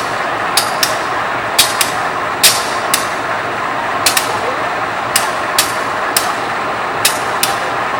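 GE 7FDL diesel engine of a CC 201 locomotive idling steadily, with sharp clicks at uneven spacing, about one or two a second, over the running noise.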